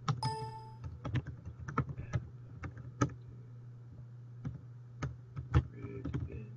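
Typing on a computer keyboard: irregular key clicks as a shell command is entered, a few keystrokes clearly louder than the rest.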